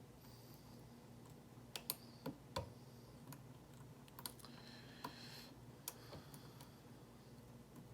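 Quiet, irregular clicking of a lock pick working the pins of a Lockwood oval lock core held in a vise: about seven sharp, separate clicks, mostly in the first six seconds, over a faint steady low hum.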